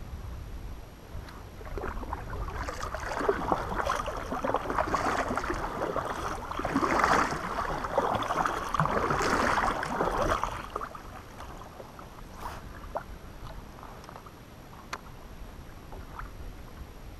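Kayak being paddled, the paddle blades splashing and dripping water, from about two seconds in until about eleven seconds in. After that, quieter water with a few light ticks.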